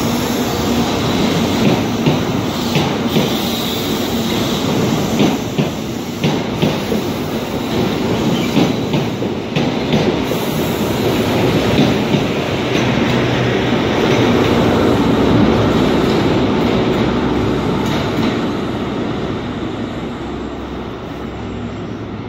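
GWR high-speed train (Class 43 diesel power car with Mk3 coaches) running past along the platform, its wheels clicking over the rail joints. The running noise is steadier in the second half and fades over the last few seconds.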